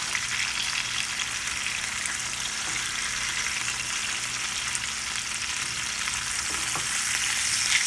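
Chicken pieces frying in olive oil in a pan, a steady sizzle with fine crackling as the meat browns.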